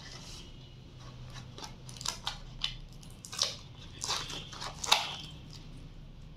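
Paperboard takeaway food box being opened by hand: a series of short crackles and rustles as the sealed flap is pulled loose and the card is handled, the loudest crackle near the end.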